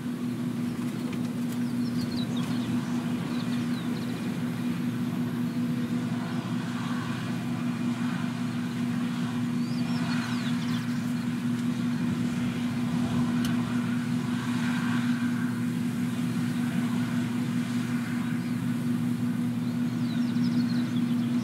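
John Deere S550 combine harvesters running steadily while harvesting wheat: a continuous engine and threshing-machinery drone with a strong steady hum, growing slightly louder near the end as the nearer combine comes closer.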